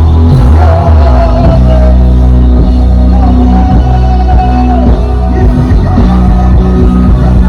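Loud praise music with heavy bass and a held, wavering melody line over it.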